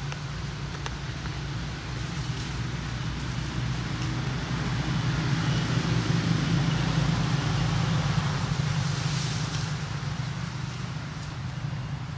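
Low, steady motor hum, like a vehicle engine running, that grows louder through the middle and eases off toward the end.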